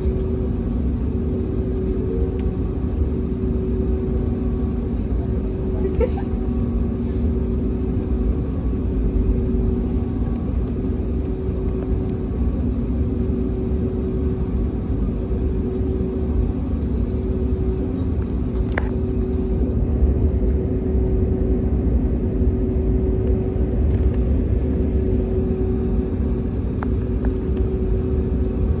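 Airbus A321neo cabin noise while taxiing: a steady low rumble from the engines at taxi thrust and the rolling airframe, with a constant two-tone hum over it. A couple of faint clicks or knocks occur about six seconds in and again around nineteen seconds.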